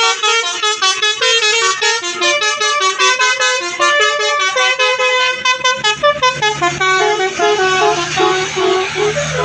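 A bus's telolet horn, a multi-note musical air horn, playing a rapid melody of short notes. From about six seconds in, a low engine rumble sounds underneath.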